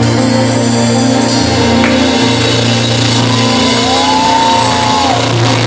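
Live band with keyboard and drums playing steadily, with a female singer holding one long note in the middle that rises, holds and falls away.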